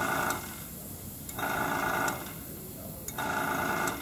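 Airbrush compressor motor kicking on and off in short bursts, each running under a second with about a second's pause between, twice in full plus the tail of a third at the start.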